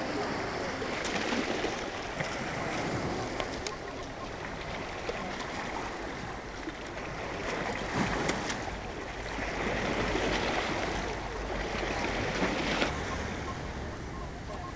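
Small lake waves lapping and splashing on a rocky, pebbly shore, the wash swelling and easing every few seconds.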